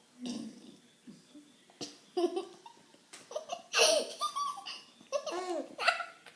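A baby laughing in several short bursts, each rising and falling in pitch, with quiet gaps between them.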